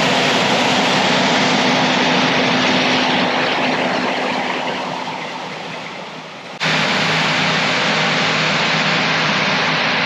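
Combine harvester running while it harvests soybeans: a steady engine and threshing drone with a constant low hum. It grows fainter over a few seconds, then abruptly returns to full level with a lower-pitched hum about two-thirds of the way through.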